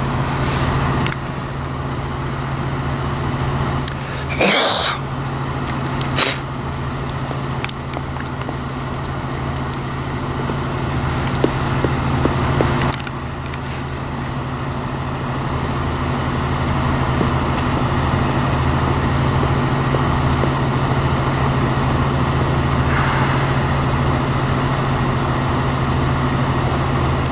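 A vehicle engine idling with a steady low hum. A brief loud noise comes about four and a half seconds in, and a few short clicks follow later.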